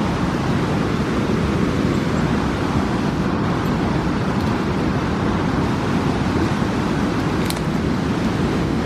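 Steady low rushing noise, with a faint tick about seven and a half seconds in.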